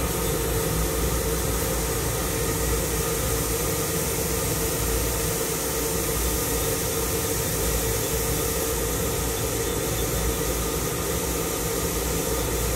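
Powered-up Swiss-type CNC lathe running: a steady hum and hiss with a constant mid-pitched whine, without separate knocks or changes.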